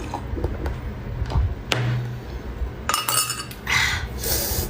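Tableware clinking: a bowl, plate and utensils knocked and set against each other in a scattered series of light clicks, with two short noisy scrapes in the second half.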